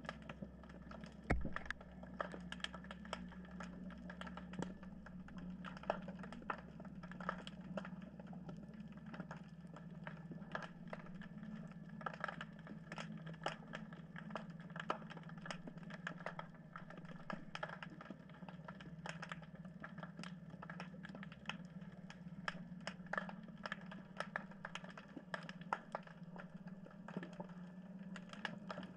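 Underwater sound: irregular sharp clicks and crackles, several a second, over a steady low hum.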